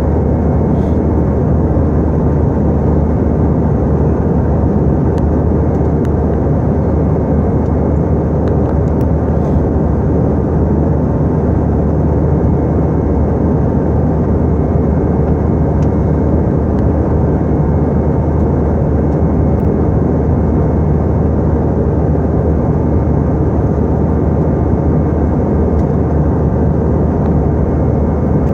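Airliner cabin noise in flight: a loud, steady rush of engine and air noise, mostly low in pitch, with an even hum beneath it.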